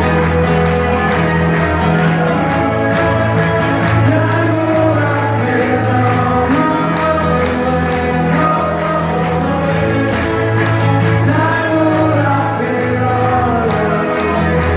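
Live unplugged rock band playing: strummed acoustic guitars over held bass notes, with sung vocals.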